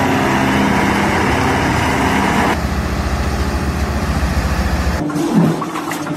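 An engine running steadily, then a deeper, evenly pulsing engine sound from about two and a half seconds in, changing to other sounds about five seconds in.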